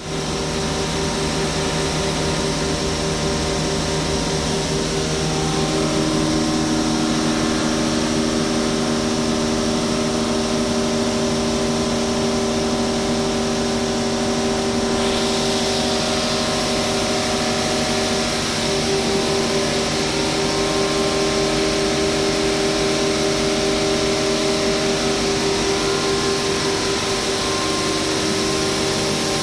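Atta (wheat flour) mill plant running: a loud, continuous machinery drone with several steady hum tones, from its motors, grinder and elevator working together.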